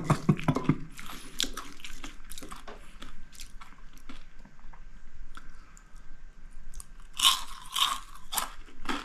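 Crisp crunching and chewing on deep-fried chanterelle mushroom chicharon, a rapid uneven run of crunches with a louder burst about seven seconds in.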